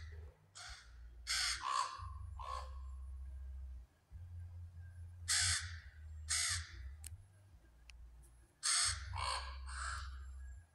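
Ravens calling: a series of about nine short, harsh calls, some coming in quick pairs or clusters.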